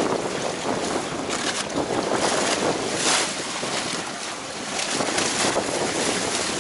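Choppy, storm-driven waves sloshing and slapping against a concrete seawall, with a continuous rush of water and repeated splashes bursting against the wall. Wind buffets the microphone.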